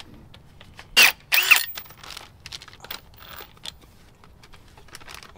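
Metal clanks and clicks of a screw-type spring compressor being handled and hooked onto a strut's coil spring. Two sharp, ringing metallic clanks come about a second in, followed by light clicks and rattles.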